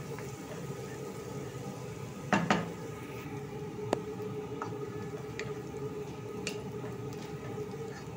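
Minced garlic sizzling steadily in hot oil in a pot while a wooden spatula stirs it. The spatula knocks against the pot twice about two and a half seconds in, once more a second and a half later, and taps lightly a few more times.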